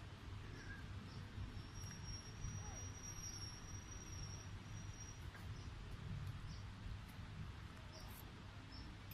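Outdoor background of a steady low rumble and hiss, with a thin, high, steady insect tone held for about three seconds near the middle and a few short high chirps.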